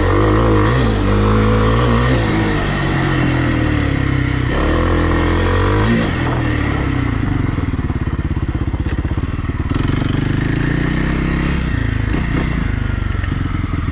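Kawasaki KLX300R dirt bike's single-cylinder four-stroke engine under way. Its revs rise and fall for the first six seconds or so, then it runs at low revs with an even chugging pulse.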